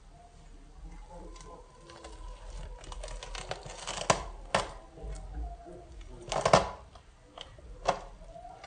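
Kitchen knife slicing a crispy fried pork chop on a plastic cutting board: the crust crackles under the blade and the blade knocks sharply on the board several times, loudest about halfway through and again near the end.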